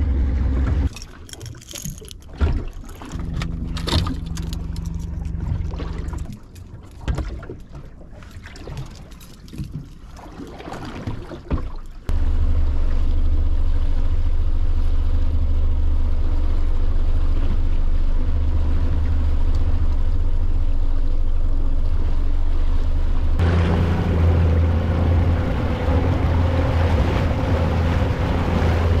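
Tiller-steered outboard motor pushing a small boat along while trolling. After a quieter, uneven stretch with a few knocks, it suddenly runs loud and steady about twelve seconds in, and grows louder again near the end.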